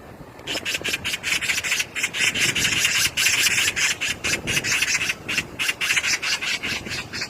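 Magpie chattering: a rapid, harsh rattle of about eight strokes a second, beginning about half a second in.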